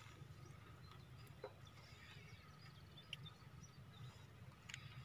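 Near silence: faint outdoor ambience with a low steady rumble and a few brief, faint chirps.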